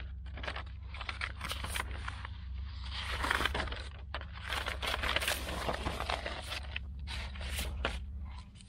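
Handling noise: a quick run of irregular rustles, clicks and light scrapes over a steady low hum, which drops away near the end.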